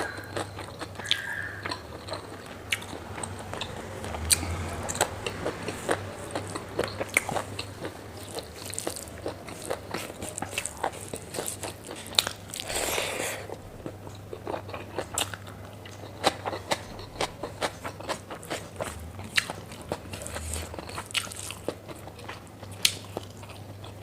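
A person chewing and biting food close to the microphone: a stream of small wet clicks and crunches, with a longer breathy noise about halfway through.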